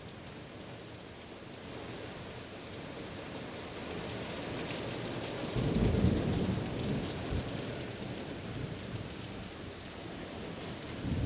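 Steady rain falling in a thunderstorm, fading in at the start. A roll of thunder swells to its loudest a little past halfway, and another rumble begins near the end.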